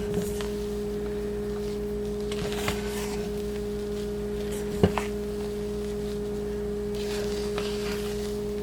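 A steady hum at two pitches, one an octave above the other, runs underneath. Over it come soft scraping sounds of a spatula folding batter in a bowl, with one sharp knock about five seconds in.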